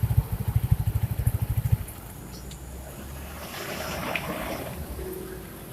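Yamaha Mio scooter's single-cylinder four-stroke engine idling with a rapid, even pulse, then switched off and cutting out about two seconds in. Faint handling noise follows.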